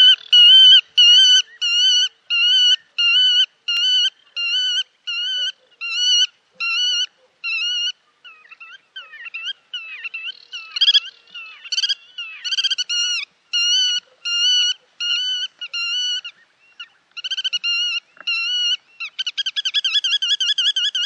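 Black-tailed godwits calling: a long series of loud, evenly repeated calls, about one and a half a second. In the middle the calls break up and overlap, then the regular series returns. Near the end the calls quicken into a rapid run.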